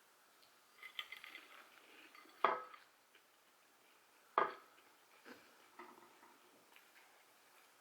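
Faint kitchen handling: plates and cutlery clinking and scraping, with two sharper knocks, about two and a half and four and a half seconds in.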